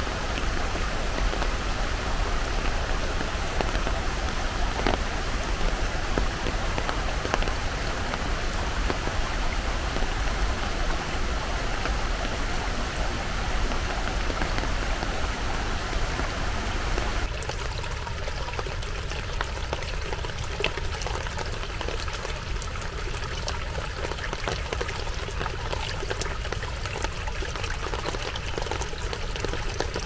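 Steady rush of creek water with rain falling. About 17 seconds in, the sound changes abruptly to a lighter rush with more distinct drops.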